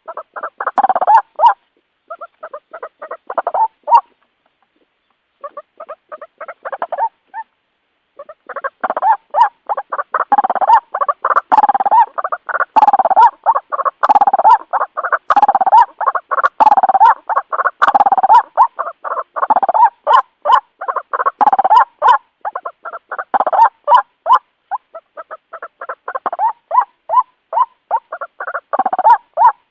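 White-breasted waterhen (ruak-ruak) calling: loud, rapid strings of repeated croaking notes, broken by short silences in the first few seconds and then running on almost without a break. It is the kind of call recording used as a lure for the bird.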